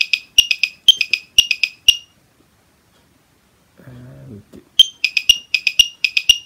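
Built-in metronome of a Lekato TM-25 clip-on metro-tuner beeping at 120 beats per minute: a stronger beep on each beat with quicker, weaker beeps between, a subdivided setting taken for shuffle. It stops about two seconds in. After a pause with a brief low murmur, it starts again in the same kind of pattern about five seconds in.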